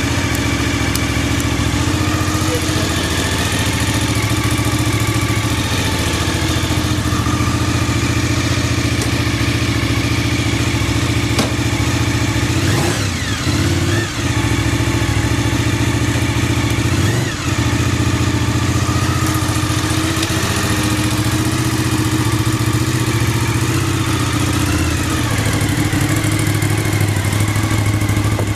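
Suzuki TL1000S 996 cc V-twin motorcycle engine idling steadily. About halfway through, two brief throttle blips come a few seconds apart, and a smaller one follows later. The idle is stable, with no abnormal noise as the seller describes it.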